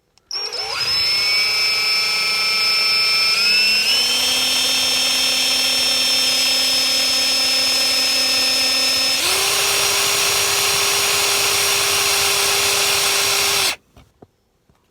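Small power drill spinning up and running with a steady high whine, drilling out a rivet. Its pitch steps up about four seconds in and its sound changes about nine seconds in. It cuts off suddenly near the end.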